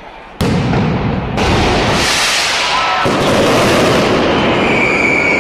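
Mascletà firework barrage starting suddenly about half a second in: a dense, continuous rattle of firecracker and shell bursts that grows heavier about a second later, with a few high whistling tones near the end.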